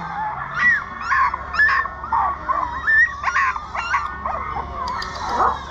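Several caged puppies whimpering and yipping together: short, overlapping high cries that rise and fall, several a second.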